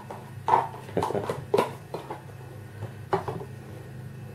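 A small boxed package being handled and opened at a table: a quick series of sharp crackles and taps, about seven in the first three seconds, over a low steady hum.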